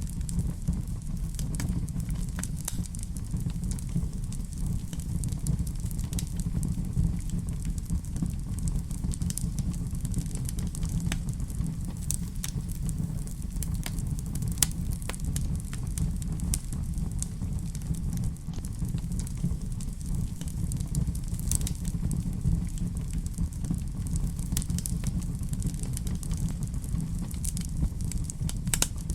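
Fireplace fire crackling: scattered sharp pops and snaps over a steady low rumble of flames.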